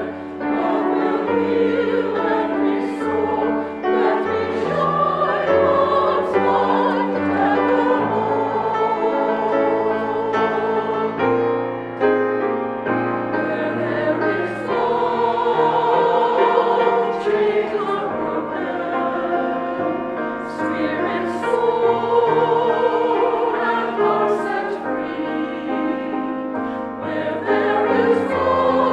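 A choir singing a slow sacred piece, the voices holding long notes that change in steps.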